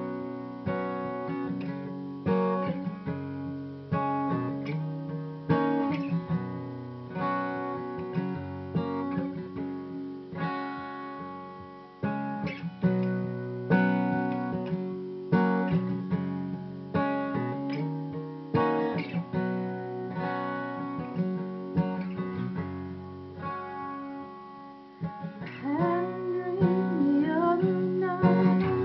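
Acoustic guitar strummed in a steady run of chords as a song's intro. Near the end a woman's singing voice comes in over the guitar.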